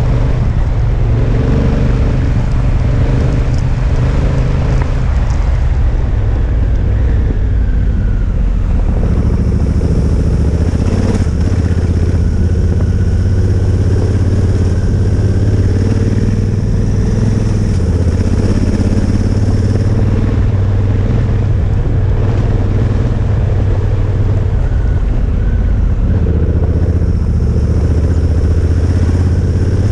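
Honda Africa Twin adventure motorcycle's engine running steadily while riding along a gravel road, heard from a camera on the rider.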